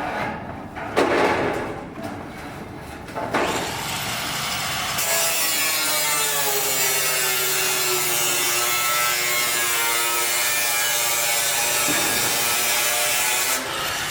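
An electric power tool cutting, running steadily for about ten seconds with its pitch sagging under load mid-cut and recovering; a few knocks come before it starts.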